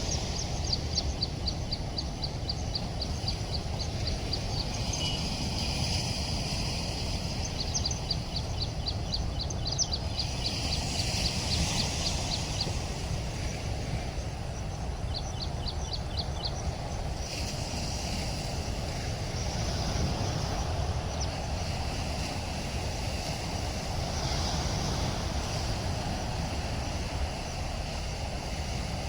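Steady low roar of rushing floodwater at a dam. Rapid high chirping trills repeat over it in a few stretches.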